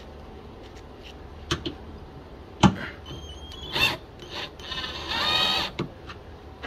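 Cordless drill/driver running for about a second, a little past the middle, after a few sharp clicks and knocks of the tool and fasteners against the tailgate's metal; the loudest knock comes about two and a half seconds in.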